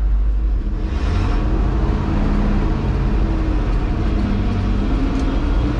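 A 1971 Chevrolet C50 truck's engine running under way as the truck rolls downhill, with a steady deep road and wind rumble. About a second in the engine note comes up, and its pitch wavers up and down.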